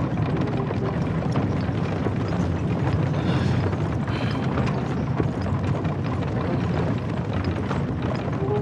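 Horse-drawn carriage on the move: a steady low rumble and rattle of wooden wheels and body, with many small knocks and clicks throughout.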